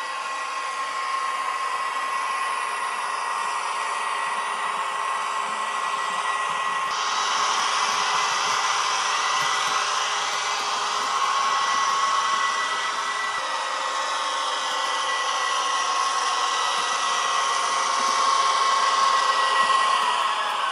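Model railway trains running on the layout: a steady whirring hum from small motors and wheels on the track, with a steady high whine. The sound shifts about seven seconds in.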